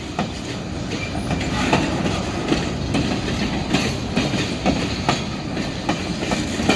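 Freight train cars rolling past: a steady low rumble of steel wheels on the rails, with irregular clacks and knocks as the wheels cross rail joints.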